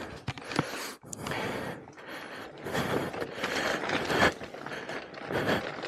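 Talaria Sting R electric dirt bike's chain and running gear rattling and clicking irregularly as it moves over rough trail ground.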